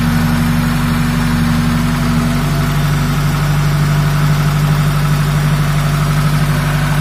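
Hyundai Verna's SOHC 12-valve four-cylinder petrol engine idling at a raised idle, its note shifting lower about two and a half seconds in. The mechanic puts its rough running down to high-voltage leaking from the ignition coil and its socket.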